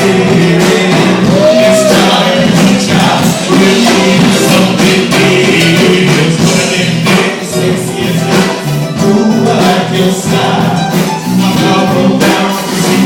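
A band playing music with singing over a steady beat.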